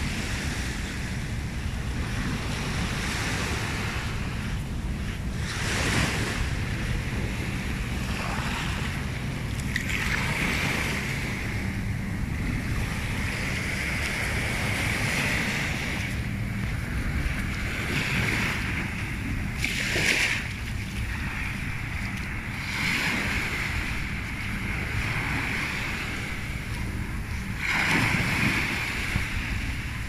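Small waves washing up a sandy beach, the foam hissing louder as each wash comes in every few seconds, over a steady low rumble of wind on the microphone.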